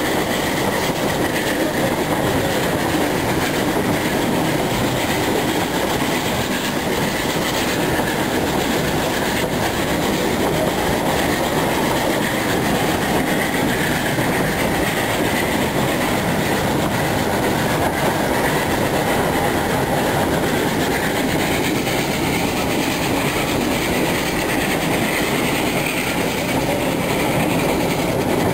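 Narrow-gauge steam train running along the track: steady, unbroken wheel-on-rail running noise.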